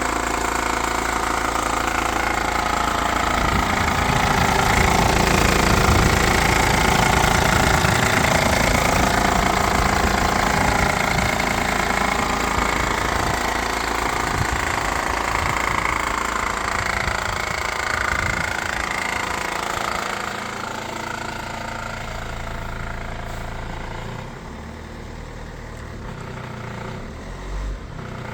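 Vehicle engine idling with an abnormal noise, a rough, knocking-like clatter. The sound gets quieter about 20 seconds in and again a few seconds later.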